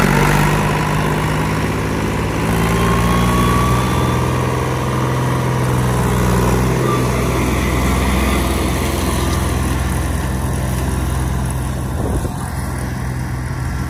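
IHC 553 tractor's three-cylinder diesel engine running steadily, powering a Deutz-Fahr KM22 drum mower. The sound gets a little quieter and duller near the end as the tractor mows away.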